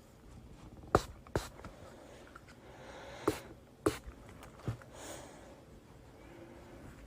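Five sharp taps or clicks, irregularly spaced over a few seconds, with a soft rustle between them over faint room noise.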